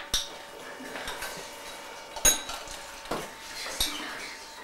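Cutlery clinking against china plates and cups: about four separate clinks, the loudest a little over two seconds in, ringing briefly.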